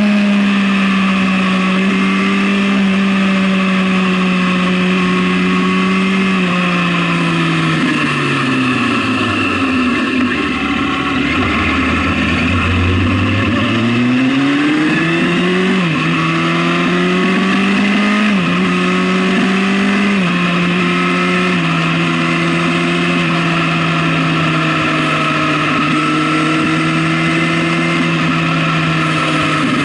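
Sport motorcycle engine heard from the rider's seat over wind rush: it cruises steadily, slows with the revs falling for several seconds, then accelerates through three gear changes, the pitch climbing and dropping sharply at each upshift, before settling into a steady cruise.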